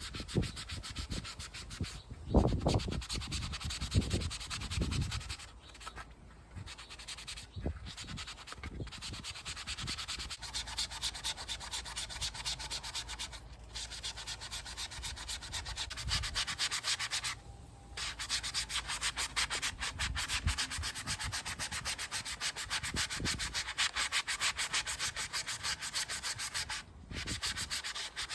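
Sanding a 3D-printed plastic helmet: a steady, rapid rasp of sandpaper strokes, broken by several short pauses, with some dull handling knocks a few seconds in.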